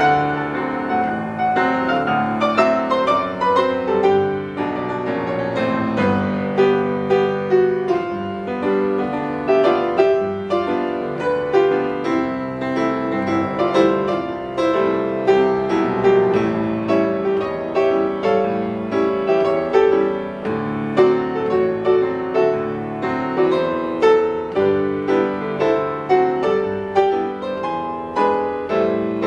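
Solo grand piano played live: a continuous flowing passage of many quick notes over sustained chords, without a break.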